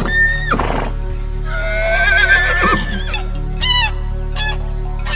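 A horse whinnying: a short call at the start, then a long wavering neigh from about a second and a half in that falls away at its end. Near the end, short honking goose calls begin. A steady music bed runs underneath.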